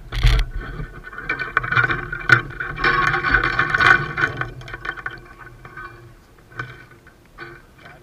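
Handling noise close to the camera: a sudden knock, then a few seconds of scraping and rustling with squeaky edges, dying down after about five seconds into a few light knocks.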